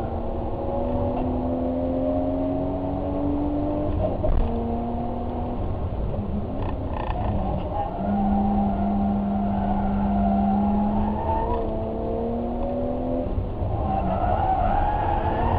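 Car engine running hard through a run, its pitch climbing slowly, dropping, then holding steady for a few seconds before changing again as the throttle and gears change.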